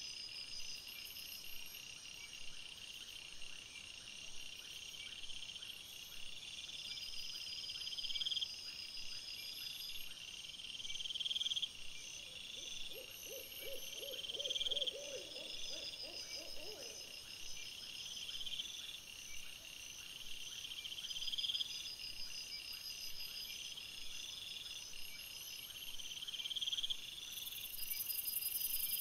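Insects trilling steadily in high rising phrases repeated every two to three seconds, with an owl giving a quavering hoot of rapid notes for a few seconds near the middle.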